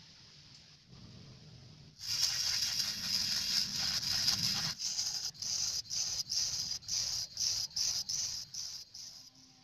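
Mini grinder's sanding drum spinning against a small clear plastic part: a steady high hiss starts about two seconds in. It then breaks into short strokes about twice a second as the piece is pressed on and lifted off, and stops near the end.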